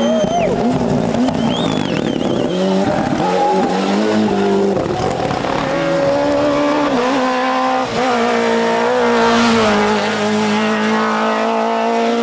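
Group A rally cars driven flat out on a tarmac stage, their engines revving up and down through the gears as they take corners and pass close by. There is a short tyre squeal about two seconds in.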